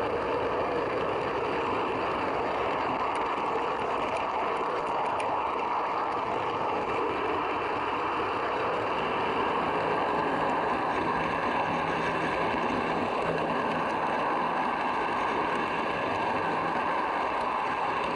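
Model train running along the track, heard from a camera riding on one of its coaches: a steady rolling rumble of the wheels on the rails. A faint low hum joins about halfway through.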